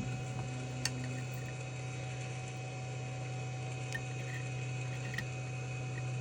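Steady low electrical hum from running board-rework heating equipment, with a few faint light clicks.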